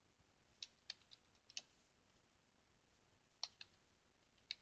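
Faint computer keyboard keystrokes: a handful of separate key clicks, one run of them about a second in and another near the end, as a short command is typed.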